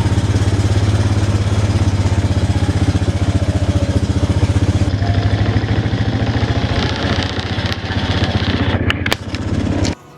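An engine running steadily close by, with a low hum and a fast, even pulse. It cuts off abruptly near the end.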